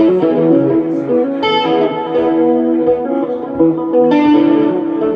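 Guitar music: sustained, ringing notes, with strong new chords struck about a second and a half in and again near four seconds, over a faint low pulse.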